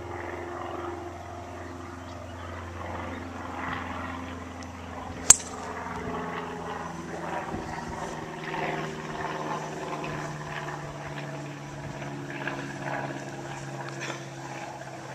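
A golf driver striking a ball off the tee: one sharp, crisp click about five seconds in. Under it, an engine drones steadily throughout.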